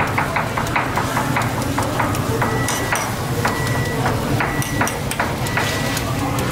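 Metal ladle tapping and scraping on a steel griddle, spreading egg mixture. Quick clicks of about six a second for the first two seconds give way to slower knocks about two a second, several leaving a short metallic ring.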